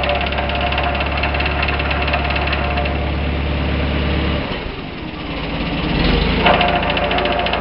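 1951 Farmall Super A tractor running, with a fast, jackhammer-like rattle that the owner hears as a strange noise in the transmission and cannot explain. About four and a half seconds in, the deep hum drops away and the sound dips, then it builds back up about a second and a half later.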